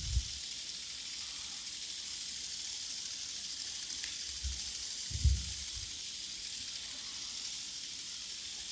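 A steady high hiss of fine crackling sounds made live by the performers, broken by two low thumps, one at the very start and a louder one about five seconds in.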